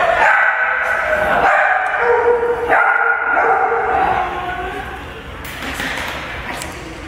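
Small dogs whining and yipping: a run of high-pitched, drawn-out whines, each held for about a second, growing softer in the second half.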